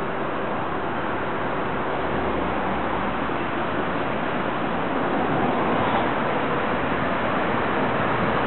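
Heavy recovery truck's diesel engine running as it drives slowly nearer, slowly getting louder, under a steady rushing noise.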